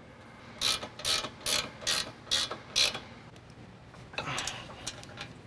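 An 18 mm ratcheting wrench clicking on its back-strokes as a bolt is run down: six short rasps about two a second, then a fainter one about four seconds in.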